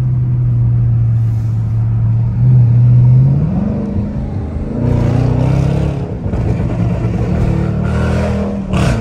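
Burble-tuned Dodge Charger engine and exhaust heard from inside the cabin. It runs at a steady low drone, then accelerates with rising pitch about two and a half seconds in and climbs through the gears. Near the end the revs drop with a single sharp crack, the kind of pop a burble tune makes when the throttle lifts.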